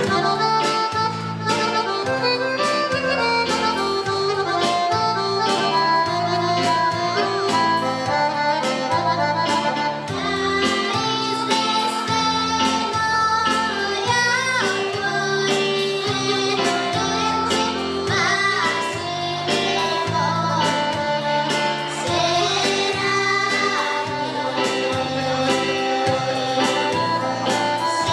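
Group of children singing a Bulgarian folk song together over an instrumental accompaniment with a steady beat.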